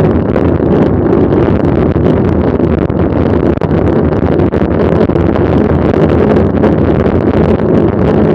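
Steady wind rumble buffeting the microphone of a camera carried on a moving mountain bike, loud and unbroken.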